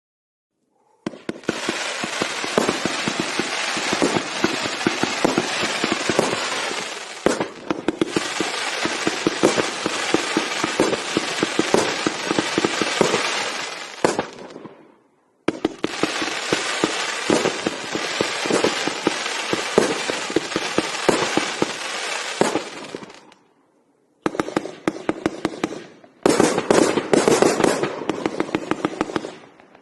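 A multi-shot 1.2-inch fireworks cake firing, shots following each other several a second in long continuous runs, broken by brief pauses about halfway and near the end.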